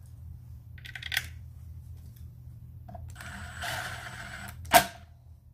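Cordless power tool being set on the brush cutter's clutch bolts to tighten them. There is a click about a second in, a short rattling whirr of about a second and a half around the three-second mark, and one sharp metallic knock near the end.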